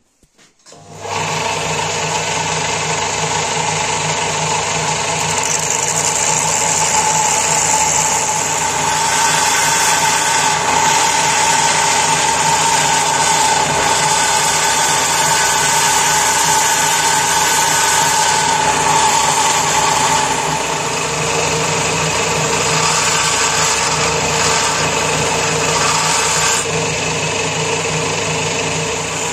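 Ferm BS-700 bench belt sander switching on about a second in and running steadily. The knife's steel tang and brass guard are held against the moving belt to grind them, which gives a constant hiss over the motor's hum.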